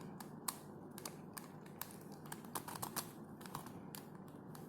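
Faint, irregular plastic clicks and clacks of a corner-cut helicopter cube's pieces as its faces are turned.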